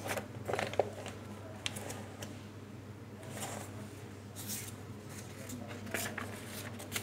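Paper pages of a printed question booklet rustling as they are handled and turned, in several separate rustles, over a steady low hum.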